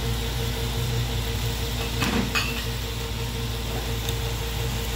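Diced carrots tipped from a ceramic bowl into a stainless steel pot, with a couple of light knocks about two seconds in and another near the end, over a steady low hum.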